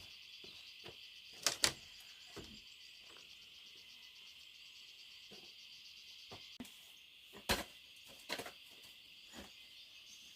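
Steady high chorus of crickets, with a few sharp knocks or clicks over it, the loudest a quick double knock about one and a half seconds in and another near seven and a half seconds.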